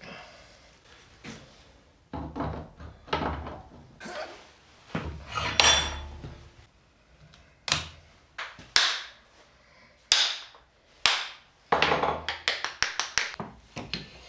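Knocks and sharp taps from work on a propshaft universal joint on the bench: a scattered series of single strikes, some ringing briefly, then a quick run of taps near the end.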